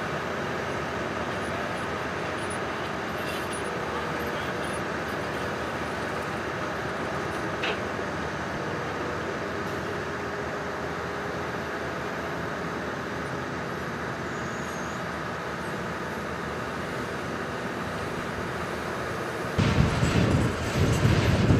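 Cat 320C excavator's diesel engine running steadily as the machine swings and dumps soil, with a single brief clank about eight seconds in. In the last two seconds a louder, uneven low rumble rises over it.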